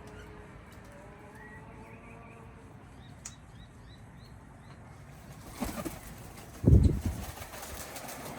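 Faint birds chirping in the background, then wingbeats close by. A short flutter comes about five and a half seconds in and a loud, low flurry of flapping near seven seconds: a large bird, a cockatoo, flapping its wings as it lands or takes off.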